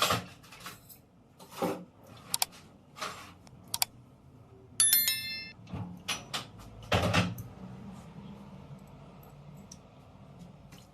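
Small metal parts being handled and set down on a hard bench: a run of knocks and scrapes, with one bright ringing metallic clink about five seconds in, then only a low steady hum.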